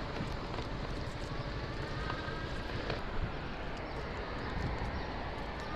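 Riding noise from an e-bike moving along a city road: a steady rush of wind and tyre noise, with a few light knocks and rattles from the bike and faint thin whining tones that come and go.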